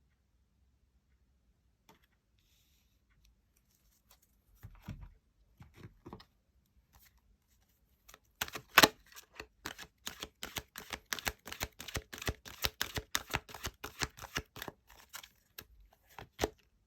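Tarot cards being shuffled by hand: a few soft handling sounds, then from about eight seconds in a fast run of crisp card clicks, several a second, for about seven seconds, with one last click near the end.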